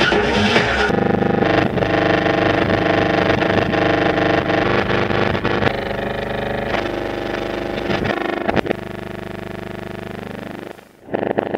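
Dense electronic drone made of many sustained humming tones, with an engine-like, mechanical character. It shifts texture about a second in, turns into a rapid pulsing with a falling glide near the end, then cuts out almost completely for a moment before coming back loud.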